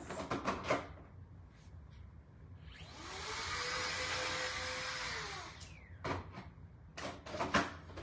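A handheld craft heat tool runs for about three seconds: its small fan motor whirs up to speed with a rush of blown air, then winds down as it is switched off. Handling knocks and rustles come before and after it.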